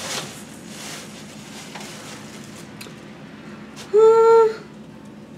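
Cloth rustling as a knit cardigan is handled. About four seconds in, a single brief, high vocal note is held for about half a second, like an 'ooh' or a hum.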